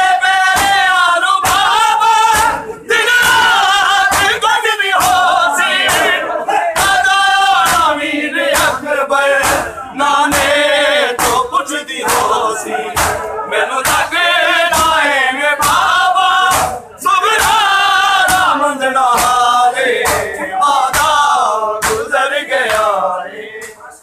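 A crowd of men chanting a noha (Shia lament) together, over a steady beat of open-palm chest-beating slaps (matam), about two a second.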